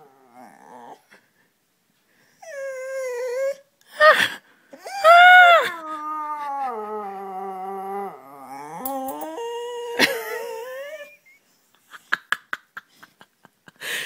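A dog howling in several long, wavering howls with its head thrown back. The longest starts about five seconds in and slowly falls in pitch. A run of quick clicks comes near the end.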